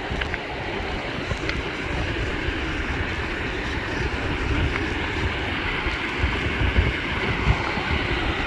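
Steady rushing roar of a waterfall, with wind buffeting the microphone in uneven low gusts.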